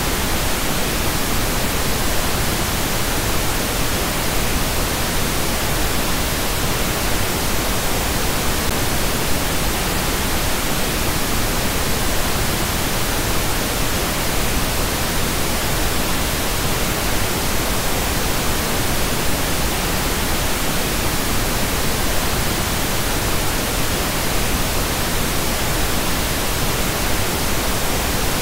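Pink noise test signal: a steady, even hiss spread over the whole frequency range, holding the same level throughout.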